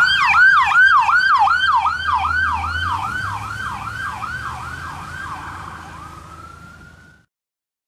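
Electronic siren of a Ford F-450 ambulance on a fast yelp, about two and a half sweeps a second, over the truck's engine. It fades as the ambulance drives away, changes to a single rising tone near the end, then cuts off suddenly.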